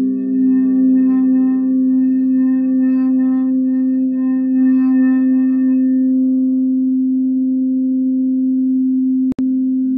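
Crystal singing bowls ringing in a sustained low drone with a slight waver, higher overtones shimmering above it for the first several seconds before fading out. The sound cuts out for a split second near the end.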